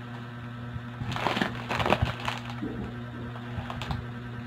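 Clear plastic packaging being crumpled and squeezed in the hands: crinkling crackles in two bursts about a second and two seconds in, with a lighter crinkle near the end.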